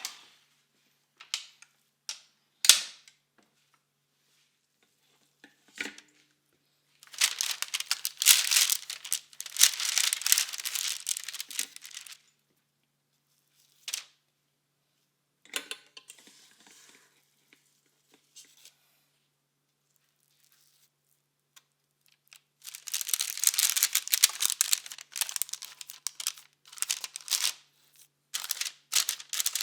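Crinkling and rustling in two long stretches, with scattered clicks and taps in between.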